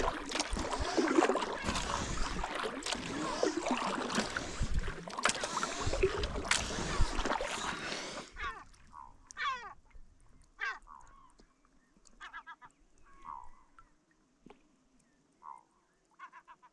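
Strong wind on the microphone with water splashing and a few knocks for about eight seconds. It then cuts off suddenly to near-still quiet, where birds call in short runs of repeated notes, several times over.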